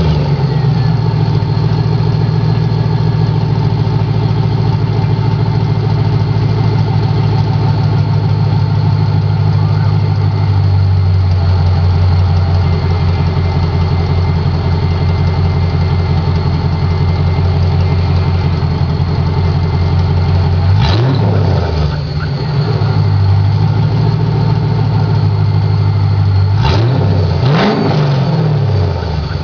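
2000 Chevrolet Camaro Z28's LS1 V8 idling steadily just after starting, through a cat-less exhaust with stock manifolds and an SLP Loudmouth II muffler dumped with no tailpipe. The throttle is blipped three times, the revs rising and dropping quickly: once about two-thirds of the way through and twice near the end.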